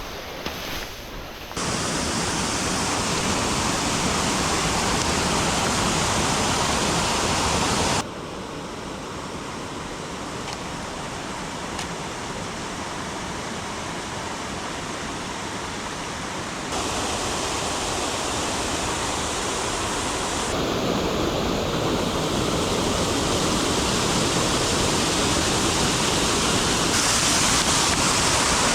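Steady rush of running water, fairly loud, breaking off and changing in level and tone several times where separate recordings are joined.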